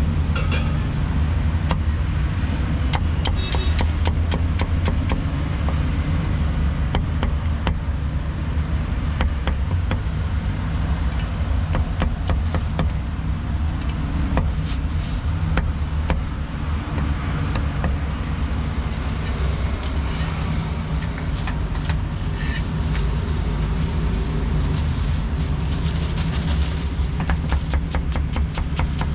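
Steel meat cleaver chopping roast pork belly and cucumber on a thick round wooden chopping block: sharp knocks, a quick run of chops about two to five seconds in and scattered strikes after. A steady low rumble of street traffic runs underneath and is the loudest sound.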